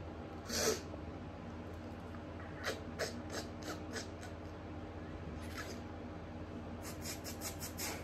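A woman's allergic sneezing fit, stifled behind her hand. There is one sharp burst of breath about half a second in, then quick runs of short, airy stifled sneezes around three seconds in and again near the end.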